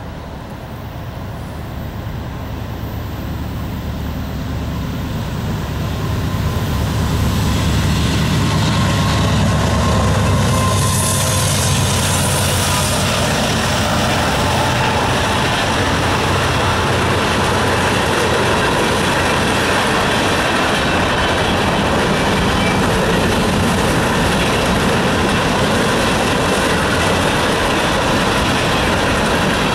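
Norfolk Southern freight train passing: a low diesel rumble grows louder over the first several seconds, then settles into the steady rolling noise of freight cars on the rails.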